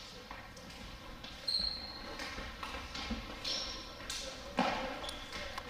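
Sneakers squeaking briefly on a hardwood gym floor, three times, among scattered thumps and faint voices.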